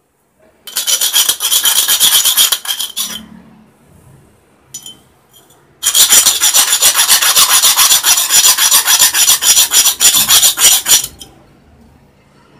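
Round file rasping back and forth inside a drilled hole in a metal exhaust end cap, smoothing its rough edge: two runs of quick strokes, the first about two seconds long, the second about five, with a few short strokes in the pause between.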